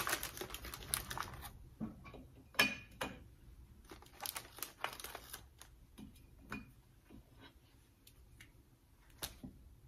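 Crinkling and rustling of cookie wrapping, dense at first, then a scattering of light clicks and taps as the cookies are set on a stainless steel plate and the plate is handled.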